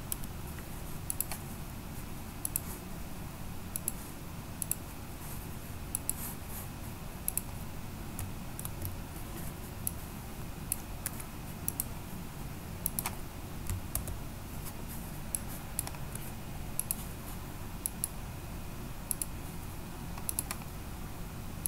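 Scattered, irregular clicks of a computer keyboard and mouse as values are typed into dialog boxes, over a steady low hum.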